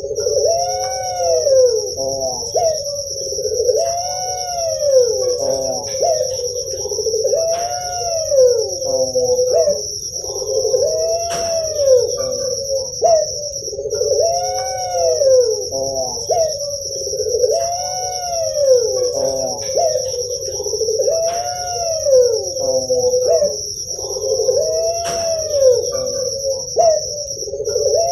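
Puter pelung (Barbary dove) cooing over and over, one rising-and-falling coo about every two seconds, with a steady high-pitched trill behind it.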